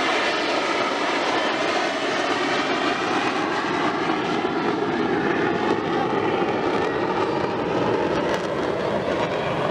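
Jet aircraft flying past, a steady loud engine roar with a faintly wavering, shifting tone.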